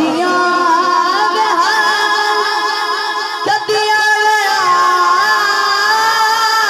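A boy singing a Punjabi naat into a microphone, holding long notes with wavering, ornamented turns of pitch.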